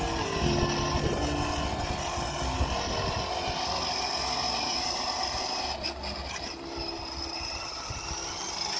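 Battery-powered ride-on toy car's electric motor whirring steadily as it drives along a concrete sidewalk.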